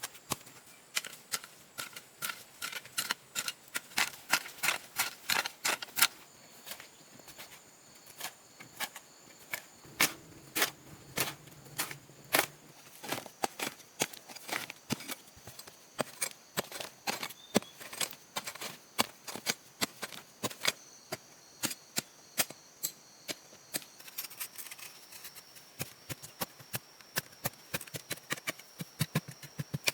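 Rapid, irregular sharp clicks and knocks, several a second, typical of hand-tool work on wood or earth, over faint steady high-pitched tones.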